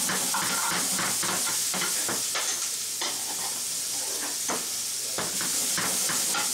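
Sliced green peppers and onions sizzling in a frying pan as they are tossed with metal tongs, with a steady high hiss and frequent clicks and scrapes of the tongs on the pan.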